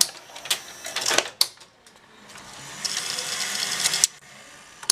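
Sony UVW-1700G Betacam SP deck's cassette door and tape-loading mechanism working: a few plastic clicks, then a motor whirring for about two seconds, ending in a sharp click.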